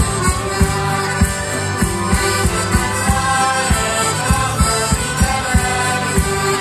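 A live folk band playing through a PA, with accordion and stringed instruments over a steady low beat of about three strokes a second.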